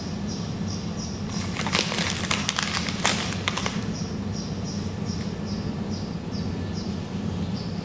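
Crinkling and sharp clicks for about two seconds, from hands handling food offerings and their wrappings on a concrete floor, over a steady low hum and a high chirp repeating about three times a second.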